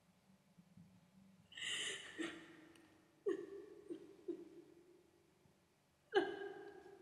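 A woman gasping and whimpering: a sharp gasp about a second and a half in, then short pitched whimpers that fade, one about three seconds in and another near the end.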